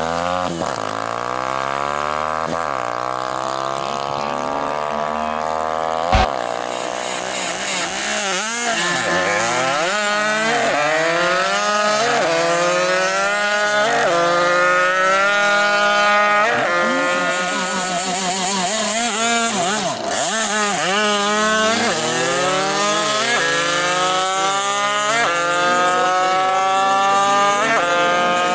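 Two-stroke drag-racing moped engine revving hard, its pitch climbing and dropping back again and again as it shifts up through the gears. There is one sharp knock about six seconds in.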